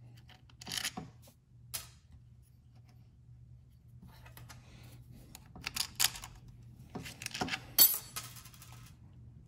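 Small metal spacers and nuts clinking against the steel studs and bracket of a brake booster as they are fitted by hand. The light clicks come scattered, with the busiest and loudest clinking around six and eight seconds in.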